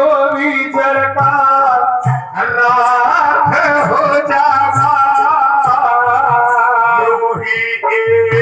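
A man singing long, wavering notes through a PA system, with a drum beating underneath and a steady held note from an accompanying instrument.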